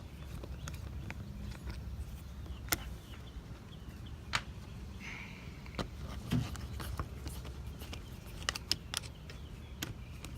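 Scattered light clicks and taps of a screwdriver and plastic trim being handled while screws come out of a car's interior door panel, irregular with a small cluster near the end, over a steady low rumble.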